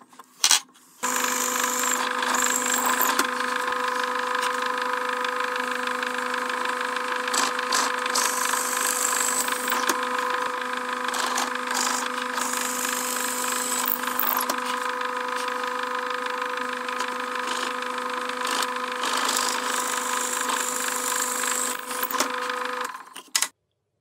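Bench pillar drill motor running with a steady hum while an 8 mm brad point bit bores through a wooden broom handle. It starts about a second in and stops shortly before the end.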